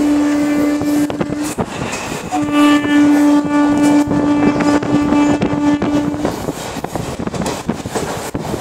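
Train horn sounding two long blasts at one steady pitch, the first cutting off about a second and a half in, the second running from about two and a half to six seconds. Under it, the continuous rattle and clatter of the moving train.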